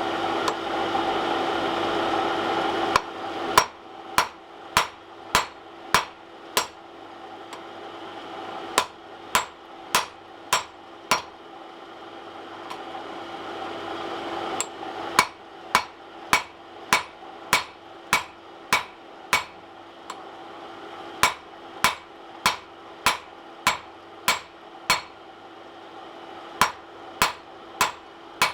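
Hand hammer striking hot steel on an anvil, drawing down the shank of a forged ball punch: runs of four to eight evenly spaced ringing blows with short pauses between. A steady hum runs underneath, louder for the first three seconds.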